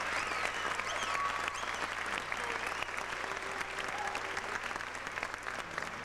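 Audience applauding, the clapping slowly thinning out.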